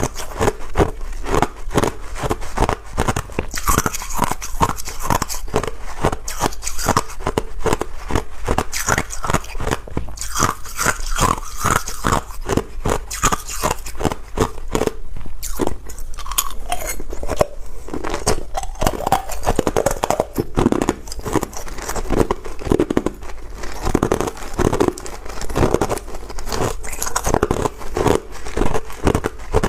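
Ice being bitten and chewed: a continuous run of crisp crunches, one after another with no real pause.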